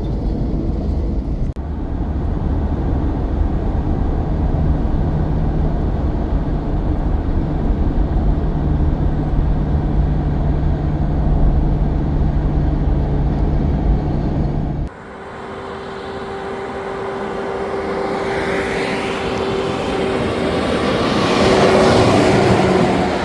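Heavy truck's diesel engine running with a deep, steady rumble and drone. After an abrupt cut about fifteen seconds in, a vehicle approaches and passes close, loudest near the end.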